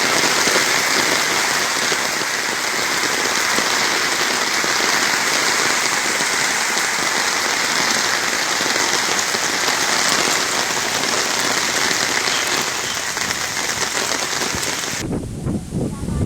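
Steady rain falling, a loud even hiss that cuts off suddenly near the end, leaving low rumbling.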